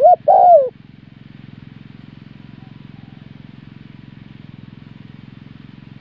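Spotted dove cooing: one loud, looping coo phrase right at the start. Two faint coos follow a couple of seconds later, over a steady low buzzing hum.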